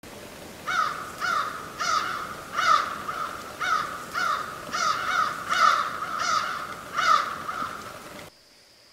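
A crow cawing over and over, about two harsh caws a second, each falling slightly in pitch. The calls stop abruptly near the end.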